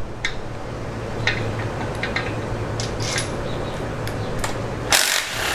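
Cordless power ratchet running on the camshaft bearing-cap bolts of a 2.4 MultiAir head, with scattered metallic clicks of the socket and bolts and a louder metallic clatter near the end.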